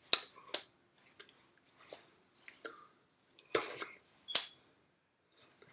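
Hands smacking and brushing against each other while signing, giving a few sharp claps and slaps, with short breathy puffs of mouth noise in between.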